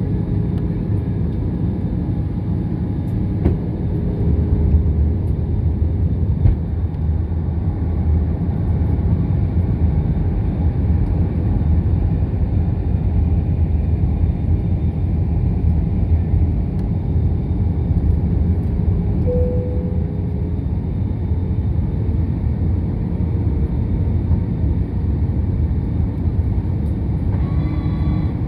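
Steady cabin noise inside an Airbus A320 on descent: a deep, even rumble of the engines and airflow through the fuselage, with a faint steady hum over it. A short tone with overtones sounds near the end.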